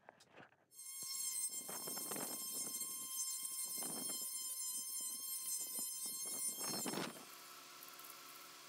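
A high-speed electric woodworking power tool, such as a sander or grinder, running with a high whine and rough surges where it bites into the wood. It cuts off sharply near the end, leaving a quieter, lower steady hum.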